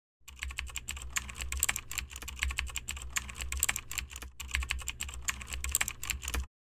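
Keyboard typing sound effect: a rapid, uneven run of key clicks that cuts off abruptly near the end.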